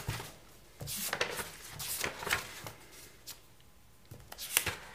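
Paper notebook pages being turned and handled, rustling in a few short bursts.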